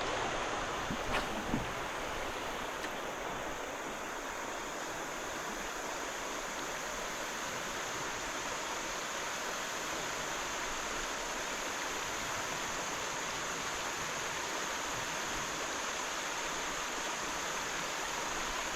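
Creek water flowing steadily, an even, unbroken hiss of moving water, with a couple of faint small knocks about a second in.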